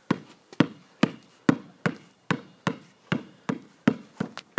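Basketball dribbled on a concrete slab: a steady run of bounces, about two and a half a second, slightly quicker near the end.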